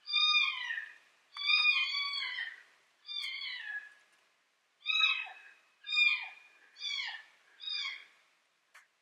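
Electronic predator game call playing cat-like mewing calls: about seven calls in a row, each sliding down in pitch, a second or so apart.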